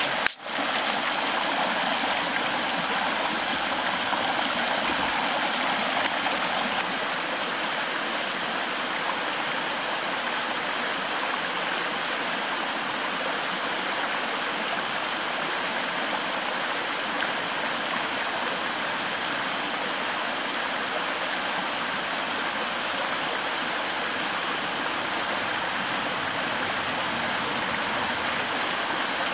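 Shallow rocky mountain stream rushing over stones and small cascades, a steady, even sound of running water.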